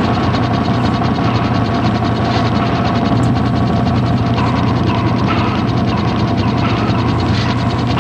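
A mechanism running steadily, with a fast, even ticking and a whirr under it, like a ratchet or gear train.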